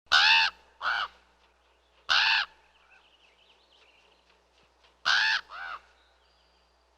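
Crow cawing: five harsh caws, two near the start, one about two seconds in, and a quick pair around five seconds in. Faint small-bird chirping in the gaps.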